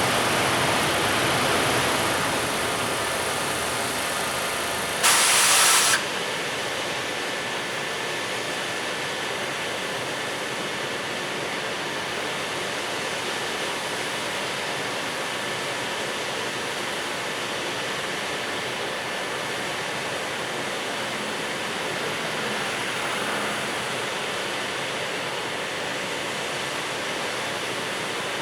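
Steady rushing noise with a short, loud hiss about five seconds in that cuts off after about a second.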